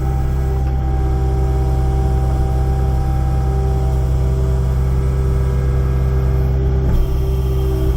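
Kubota excavator's diesel engine running steadily, with a steady whine over it and a brief knock about seven seconds in.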